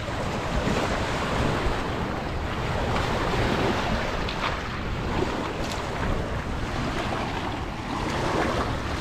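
Small waves washing onto a pebble beach, with wind buffeting the microphone.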